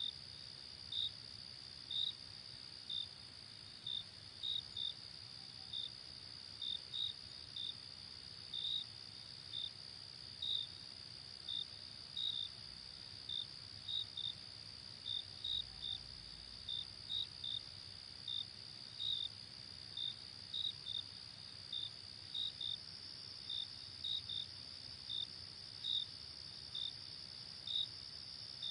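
Crickets: a steady, high, unbroken trill from a chorus of crickets, over which one cricket chirps in short, irregularly spaced chirps, about one or two a second.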